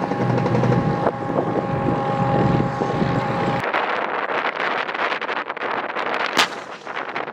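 A heavy vehicle engine running with a steady whine over a dense rumble. About three and a half seconds in it cuts abruptly to wind buffeting the microphone, with scattered crackles and a sharp click.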